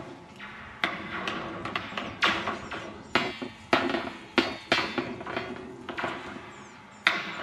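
Steel oilfield rodline, driven by a bandwheel power, clanking as it jerks back and forth through its guide posts: a run of sharp metallic knocks at uneven spacing, each with a brief ring.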